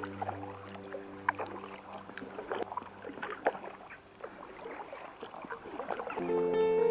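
Kayak paddle dipping into calm river water: irregular small splashes and drips as the blades go in and come out. A held music chord fades out over the first few seconds, and music comes back in near the end.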